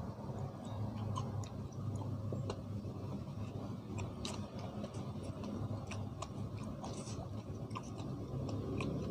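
A man chewing and smacking his lips as he eats papaya salad and pork larb with sticky rice by hand: many small, irregular wet mouth clicks over a steady low hum.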